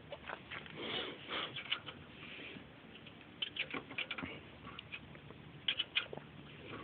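Scattered faint clicks, light metal taps and rustles of hands handling parts and tools in a truck's engine bay.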